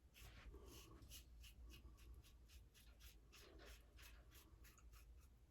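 Faint scraping of a Blackland Vector razor through stubble in quick short strokes, about four a second.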